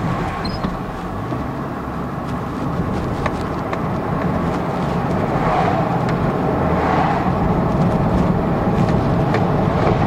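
2002 GMC Envoy driving slowly, with steady tyre, road and engine noise that grows a little louder from about halfway through as it picks up speed. No clunk comes from the rear suspension, now repaired with a new stabilizer link.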